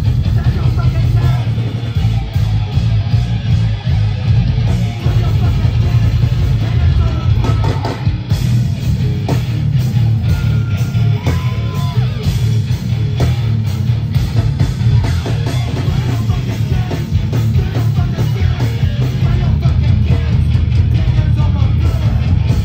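Hardcore band playing live: loud, heavily distorted guitars, bass and pounding drums.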